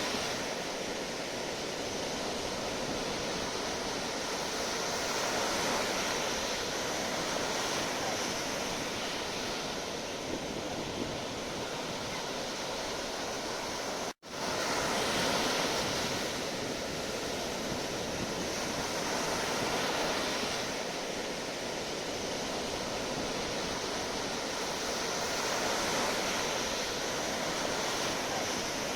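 Sea waves breaking and washing on a shore. The surf makes a steady rushing noise that swells and eases every few seconds. About halfway through it cuts out for an instant.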